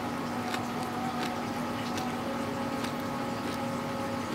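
A person eating instant noodles: short, wet mouth clicks as noodles are slurped in and chewed, every half second or so. Under them runs a steady background hum.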